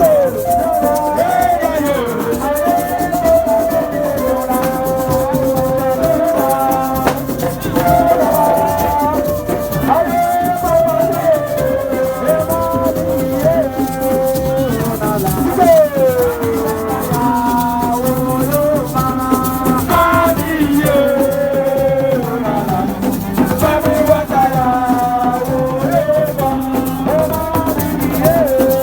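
Music with shakers keeping a steady rhythm under a melody line that slides between notes.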